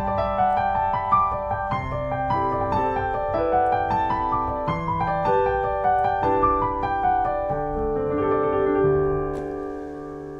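Grand piano played, a steady flow of notes in a flowing melodic passage, with the last notes ringing out and dying away near the end.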